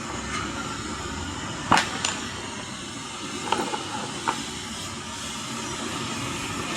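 A few short, sharp clicks and taps from handling wires and fittings while connecting a pedestal fan's capacitor lead, over a steady background noise.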